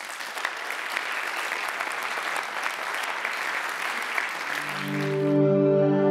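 Large audience applauding, cut off suddenly about five seconds in. Calm music of long held notes fades in under the applause just before it stops.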